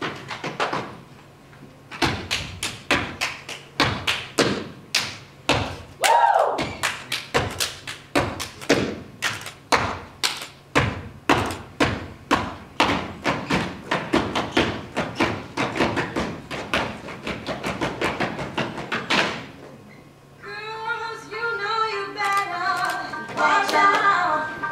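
Step team stepping: a fast, driving rhythm of foot stomps and hand claps, several strikes a second, which stops about 19 seconds in. About 21 seconds in, music with singing begins.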